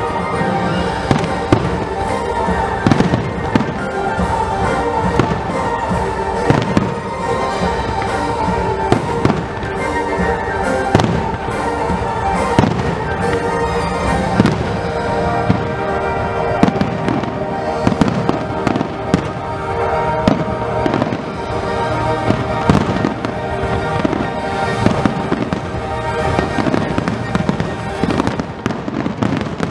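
Fireworks display: aerial shells and fountains bursting, with many sharp bangs in quick, irregular succession. Music with sustained tones plays underneath throughout.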